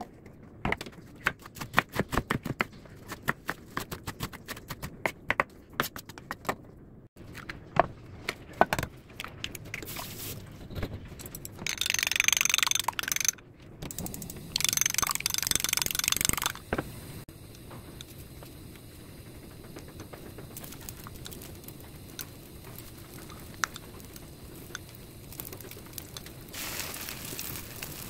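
Kitchen knife chopping kimchi on a wooden cutting board: a quick run of knocks over the first few seconds. Later come loud stretches of hissing and a faint steady sizzle from egg-coated sausage slices frying on a griddle.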